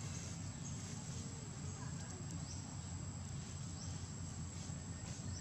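Outdoor ambience: a steady low rumble under a continuous high-pitched tone, with a few faint ticks.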